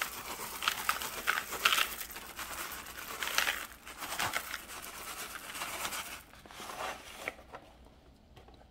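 Dry stuffing-mix bread cubes poured from a crinkling packet into a bowl of crumbled cornbread and crackers: irregular rustling that tapers off near the end.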